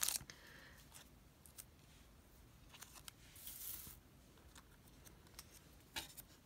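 Faint handling of small paper sticker flakes being picked up and laid on a sheet of paper: a few light ticks, with a brief soft rustle about halfway through and a slightly louder tick near the end.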